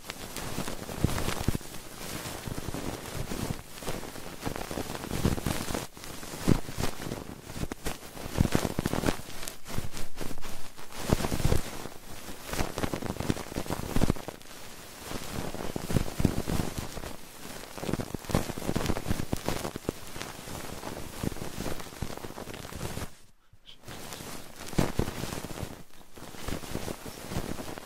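Close, crackly rustling and scratching with many small clicks, swelling and fading every second or two, from ASMR trigger objects rubbed against a 3Dio binaural microphone's ears. It stops briefly about three-quarters of the way through.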